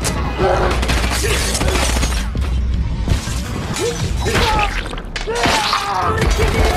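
Action-film soundtrack of a fight: a music score with repeated hits, thuds and crashes from the fight sound effects.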